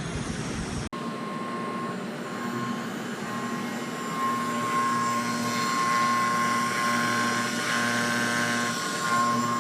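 CNC milling machine's spindle running with a steady whine, after an abrupt cut about a second in, growing louder from about four seconds in.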